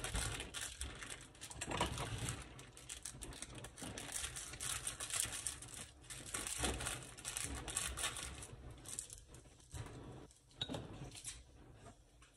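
Plastic packaging of a pack of empanada dough discs crinkling and rustling on and off as it is handled, growing sparser near the end.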